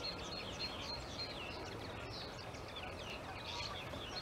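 A flock of small finches twittering and chirping together: many short, overlapping calls, over a low steady background rumble.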